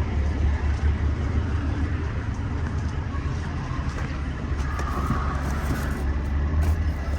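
Vehicle engine running: a steady low rumble.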